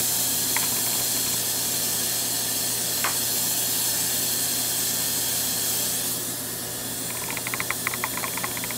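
Gas-oxygen hand torch flame hissing steadily as it heats the end of a glass neon tube. The hiss drops about six seconds in, and faint rapid ticking follows near the end.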